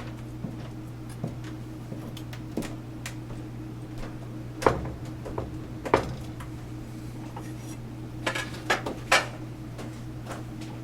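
Scattered clicks, knocks and clinks of a glass doorknob and metal parts being handled and pressed together, two sharper knocks near the middle and a quick run of clicks near the end, over a steady low hum.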